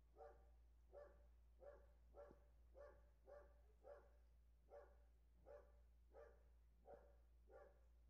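A dog barking faintly and steadily, about three barks every two seconds.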